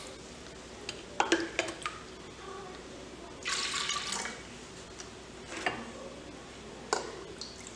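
Water poured from a plastic mug into an aluminium pressure cooker of soaked dal: a splashing pour of about a second near the middle, with short knocks and clinks before and after it.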